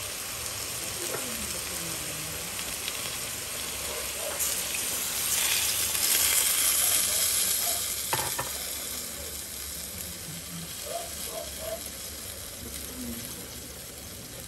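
Chicken pieces sizzling as they sauté with ginger and onion in a pot. The sizzle grows louder from about four to eight seconds in, and there is a single sharp knock about eight seconds in.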